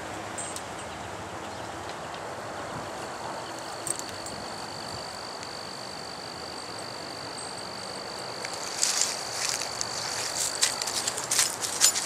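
Outdoor ambience with a thin, steady high-pitched insect trill setting in about two seconds in. From about three quarters of the way through, footsteps crunch and rustle through dry leaves and grass, louder than the rest.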